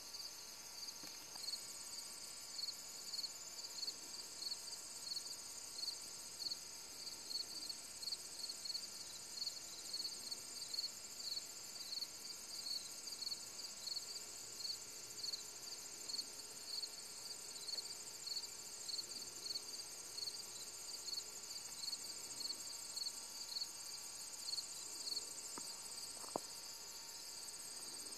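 Evening insects calling in a field: a regular high chirp about twice a second over a steady, higher-pitched continuous trill.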